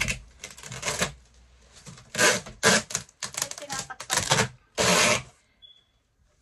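Brown packing tape being pulled off its roll in a series of short, loud rips, about six of them, the longest about five seconds in, as it is wound onto a cardboard box.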